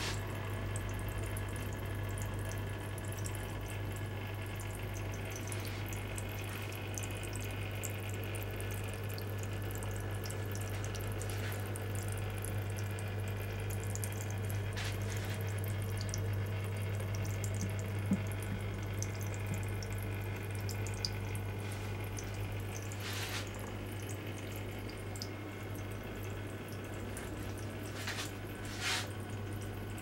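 Small copper tabletop fountain running: thin streams of water trickling and splashing into its basin, over a steady low hum from the fountain's small pump, with a few brief ticks of drips here and there.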